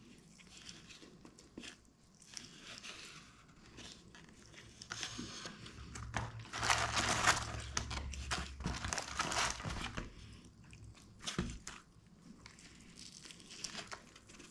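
Eating crispy breaded fried chicken wings: quiet crunching and chewing and the wings being torn apart by hand, with a louder stretch of paper crinkling in the middle as the paper-lined cardboard box is handled.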